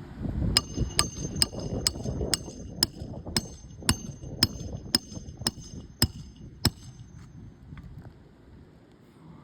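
Hammer driving a nail during a roof shingle repair: about a dozen evenly paced strikes, roughly two a second, each with a metallic ring, then stopping.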